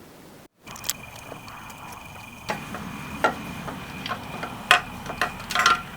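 Irregular sharp metallic clicks and knocks of hand tools working on a motorcycle engine over a low hiss, the loudest near the end, after a brief cut-out about half a second in.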